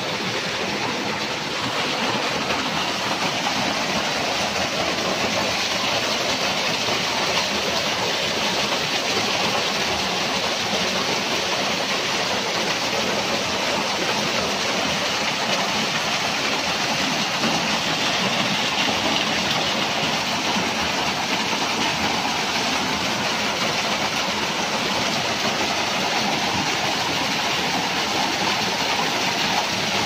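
Small waterfall pouring over rock into a shallow pool: a steady rush of falling and splashing water.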